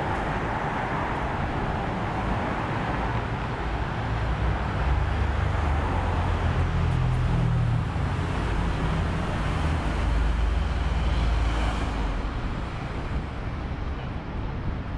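Road traffic on a city street: a steady wash of car engine and tyre noise, with a low rumble that builds a few seconds in and eases off near the end as vehicles pass.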